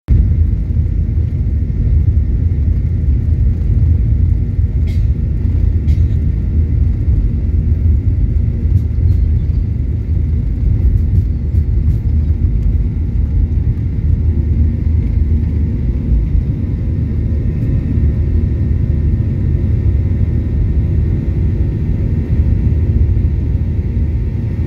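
Cabin noise inside a Boeing 737-800 during its takeoff roll and lift-off: the engines at takeoff power make a loud, steady low rumble with faint steady tones above it. A couple of sharp clicks come about five and six seconds in.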